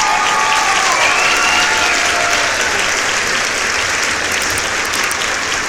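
Crowd applauding steadily, with a few cheers rising over it in the first two seconds.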